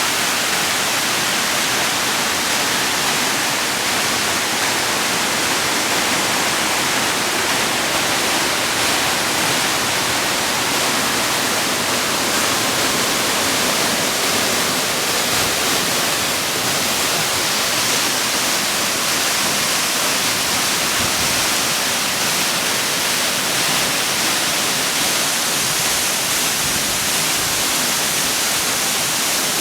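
Waterfall: a steady, loud rush of falling water that holds unchanged throughout.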